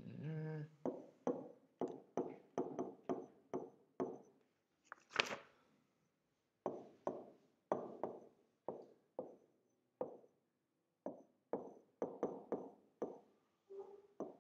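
Stylus tapping and stroking on the glass of an interactive touchscreen whiteboard while an equation is written: a run of sharp taps, about two or three a second, each fading quickly, with short pauses and one louder knock about five seconds in.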